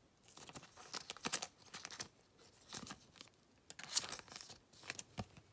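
Thin clear plastic card sleeve crinkling and rustling in short irregular bursts as it is handled and a trading card is slid into it.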